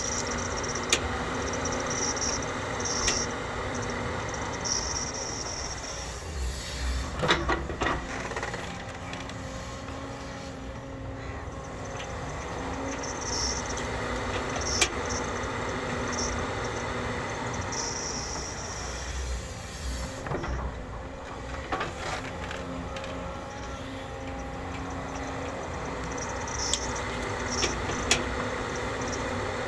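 JCB excavator's diesel engine running steadily under load while it digs and loads soil, with occasional sharp metal knocks and short high squeaks from the bucket and arm.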